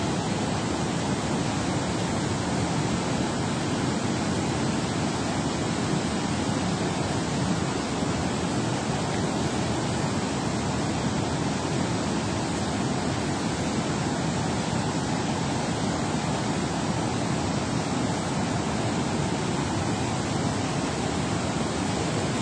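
Dam spillway tailwater rushing and churning in a steady, unbroken roar of falling and turbulent water.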